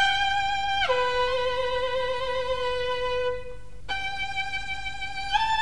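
Solo violin played slowly in long held notes, stepping down to a low note, breaking off briefly about three and a half seconds in, then resuming and stepping up near the end; awful to listen to, in the narrator's words.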